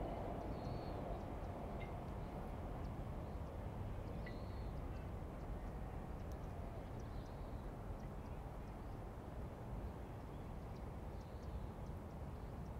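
Outdoor riverside morning ambience: a steady low rumble of background noise, with small birds giving short, faint chirps every few seconds. A low hum fades away in the first second or so.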